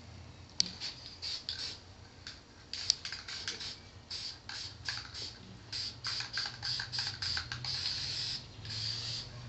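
Aerosol spray paint can spraying in short hissing bursts, which get longer and closer together toward the end. There are a couple of sharp clicks in the first three seconds.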